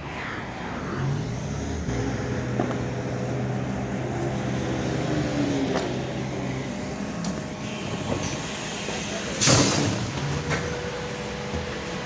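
LiAZ-5280 trolleybus running, its DK-213 traction motor giving a steady hum whose whine glides down in pitch as it slows. A short loud hiss of compressed air comes about nine and a half seconds in.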